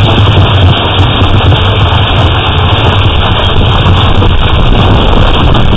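Large hailstones and rain falling hard on a concrete driveway and lawn, a loud, dense noise that goes on without a break, heard through a security camera's microphone.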